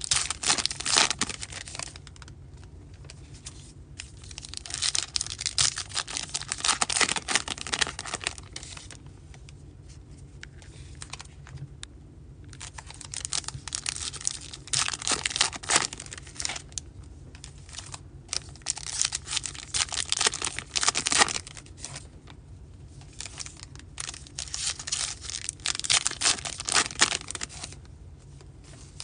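2023 Topps Heritage High Number baseball card packs being torn open by hand, their wrappers crinkling. The crackling comes in about five bursts of a few seconds each, with short quieter pauses between packs.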